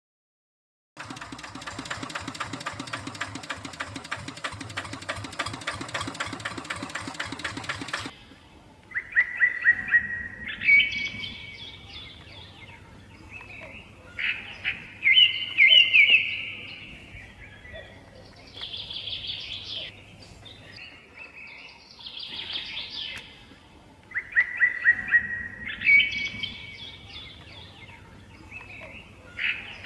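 A steady, rapidly ticking machine-like running sound that cuts off abruptly after about seven seconds. Then a songbird sings loud, short trilled phrases, repeated every few seconds.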